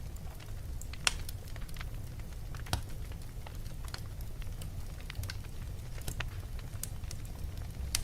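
Wood fire burning in a fireplace: a low steady rumble with irregular sharp crackles and pops, the loudest pop about a second in and another near three seconds.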